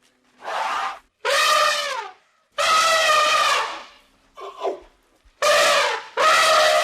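An animal calling loudly over and over: about six drawn-out, nasal cries, each up to about a second long, dropping in pitch at the end. One shorter, weaker cry comes near the middle.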